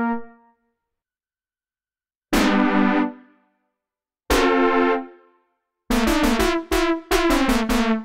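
Cherry Audio Mercury-6 software synthesizer, an emulation of the Roland Jupiter-6, playing a brass preset. After a pause there are two separate bright brass chords, each sounding for under a second and then dying away, followed by a quick run of about eight short staccato chord stabs.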